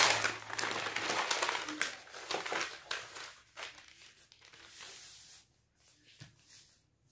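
Brown pattern paper rustling and crinkling as it is lifted, laid down and smoothed flat on a table by hand. Loudest in the first three seconds or so, dying away to a few soft brushes.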